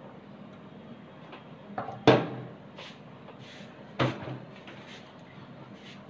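Two loud knocks about two seconds apart, with a few lighter taps between them: hand tools, a screwdriver among them, set down on a tabletop after a fan blade is screwed on.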